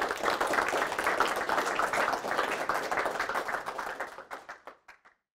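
Small audience applauding, many hands clapping together; the clapping thins out to a few last claps about four seconds in and stops just before five seconds.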